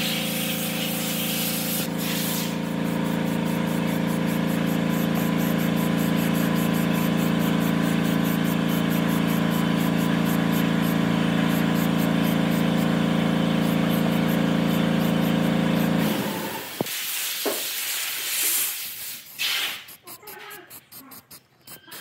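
A motor-driven workshop machine running steadily with a strong hum and a fast, even rhythm over it, then shutting off about 16 seconds in. A few short knocks and handling sounds follow.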